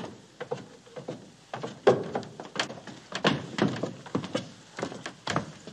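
A run of irregular knocks and thumps on wood: footsteps and movement on a wooden floor.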